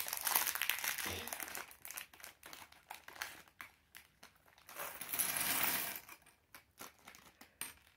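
Thin plastic bag of Lego parts crinkling as it is handled, loudest near the start and again about five seconds in, with scattered light clicks of small plastic pieces in between.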